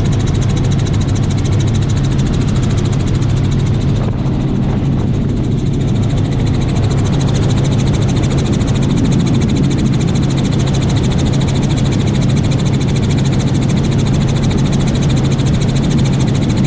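Helicopter in flight heard from inside the cabin: a loud, steady rotor and engine drone with a rapid, even chop of the rotor blades.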